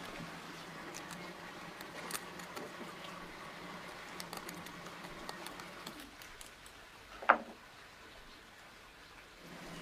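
Faint scattered clicks and ticks over a low steady hum, with one sharp knock about seven seconds in.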